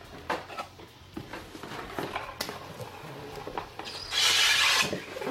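Cardboard packaging being handled, with light taps and rubs. About four seconds in comes a loud scraping hiss lasting under a second: the brown inner box sliding out of the black cardboard outer sleeve of a power supply's retail box.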